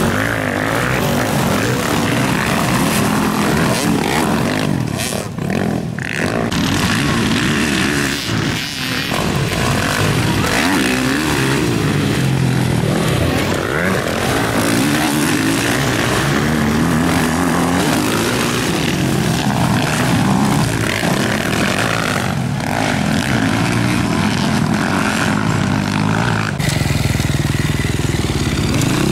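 Motocross bikes racing on a dirt track, their engines revving hard and rising and falling in pitch as the riders accelerate through turns and over crests.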